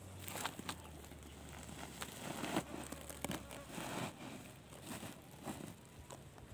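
Freshly cut grass and leaves being stuffed into a woven feed sack by hand, the sack and foliage rustling and crinkling in irregular bursts.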